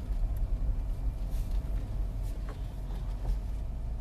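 Steady low rumble inside a car's cabin, with a few faint rustles.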